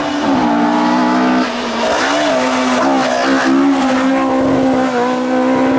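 Rally car engine running hard at high revs, its pitch mostly steady with a few brief dips, over a constant rushing noise.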